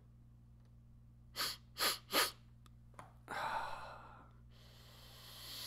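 A man snorting a bump of dry, fluffy snuff off the back of his hand up one nostril: three quick, sharp sniffs about a second and a half in, then a longer breath and a slow, steady breath near the end.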